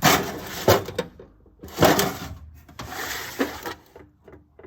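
Metal cutting tools, end mills, being handled and moved about in a bin: several short bursts of rattling and clinking, with quiet gaps between.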